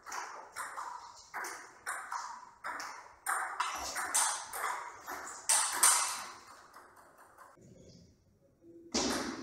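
Table tennis rally: the celluloid ball clicks off the bats and table about twice a second, each click ringing briefly in a large hall. The clicks break off for about a second near the end, then a single sharp hit follows.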